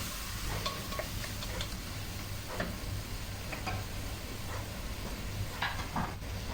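Light, irregular crackles and ticks from a pot of freshly added pigeons frying with onions and spices, over a low steady hum.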